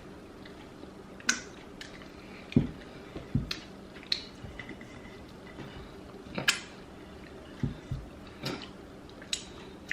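Close-miked eating sounds: scattered wet mouth clicks and lip smacks, about a dozen in all at irregular intervals, with a few soft low thumps.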